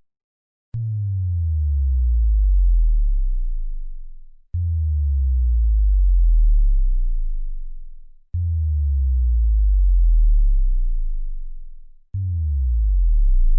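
Synthesized bass drop sound effects: four deep booming tones, each starting suddenly and sliding down in pitch as it fades over about three and a half seconds, one about every four seconds.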